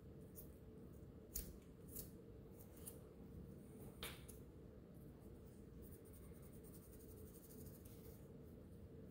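Faint scratching of sandpaper worked by hand over a metal watch case, with a few light clicks and taps as the watch is handled.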